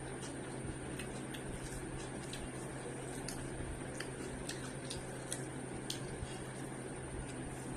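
Close-miked eating sounds: scattered soft mouth clicks and squishes of chewing, irregular and about once or twice a second, over a steady low electrical hum and a faint high whine.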